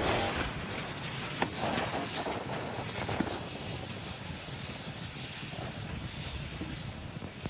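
Low rumble of the SpaceX Starship SN8 prototype's landing explosion and fire, fading slowly, with a few sharp cracks.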